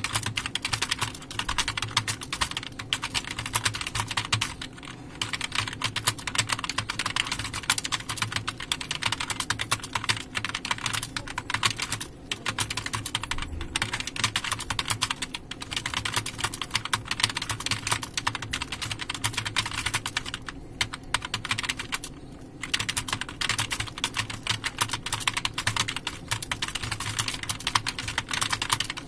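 Fast, continuous typing on a computer keyboard: dense rapid key clicks with a few brief pauses.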